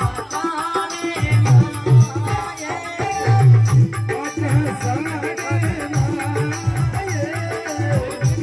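Marwari folk bhajan music: a steady, rhythmic drum beat under jingling percussion and a wavering melody line.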